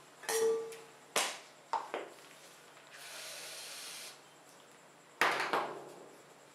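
Aerosol can of whipped cream spraying with a steady hiss for about a second, midway through. Around it come sharp knocks and clatters of the can being handled: three in the first two seconds, the first with a brief ring, and the loudest one about five seconds in.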